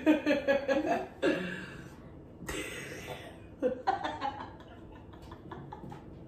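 Women laughing: a burst of quick chuckles in the first second, then several shorter bursts that die away after about four and a half seconds.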